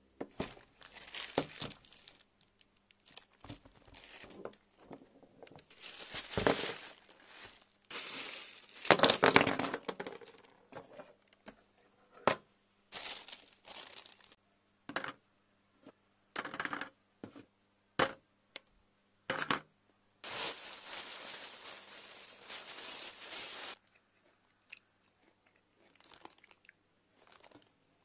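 Plastic packaging crinkling and tearing in short bursts, with sharp clicks and taps in between, as small purchases are unwrapped and handled. A longer unbroken stretch of rustling comes about twenty seconds in.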